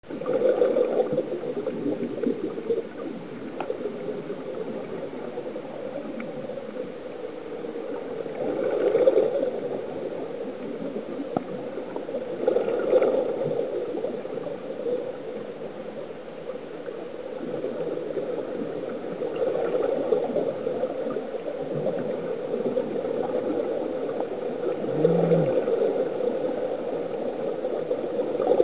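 Muffled underwater bubbling and gurgling of escaping air, swelling louder every few seconds.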